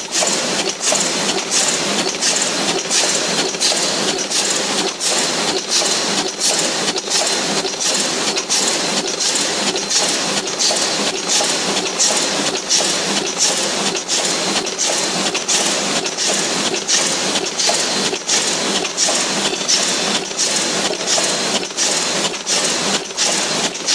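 Automatic paper bucket forming machine running at production speed: an even mechanical clatter that repeats about one and a half times a second, one cycle per bucket formed.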